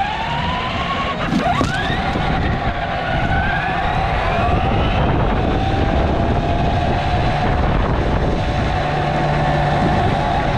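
Whine of an electric motor rising in pitch as it speeds up over the first couple of seconds, then holding at a steady, slightly wavering pitch over a steady rushing noise.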